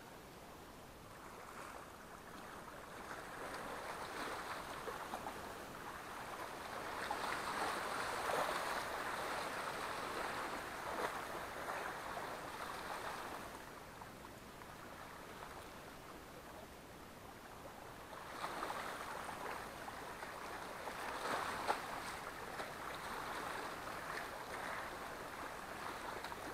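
Small sea waves washing and lapping among shoreline rocks, swelling and fading in two long surges.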